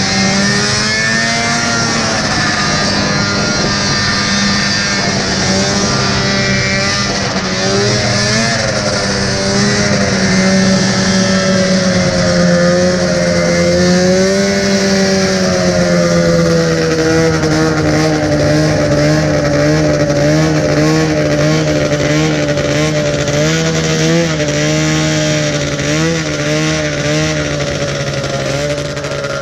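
Vintage two-stroke snowmobile engine heard from the sled, its revs rising and falling as it runs along the ice, then dropping to a lower, unsteady pitch that wavers quickly as the sled slows. Wind rush throughout.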